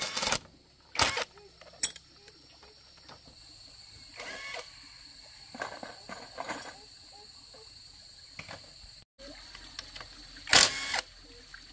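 Irregular knocks and clatter from hand work, a handful of sharp strikes spaced a second or more apart, over a faint steady high whine.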